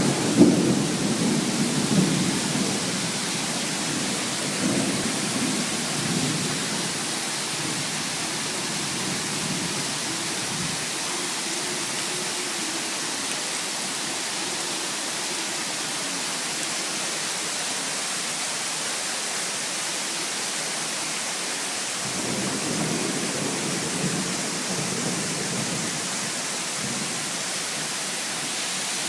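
Steady rain hissing, with low rolling thunder rumbles in the first few seconds and again later on.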